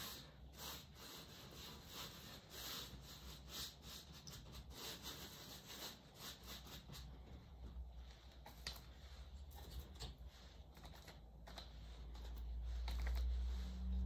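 A sponge dabbing acrylic paint onto a stretched canvas: a run of soft pats, about three a second, thinning out about halfway through. A low rumble swells near the end.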